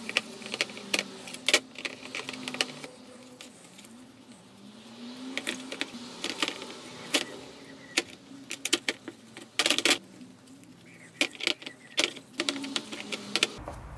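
Metal hand drill parts clinking and knocking against each other and the plastic sheet as paint stripper is brushed onto them, with scattered sharp clicks and a cluster of louder knocks about two-thirds of the way in.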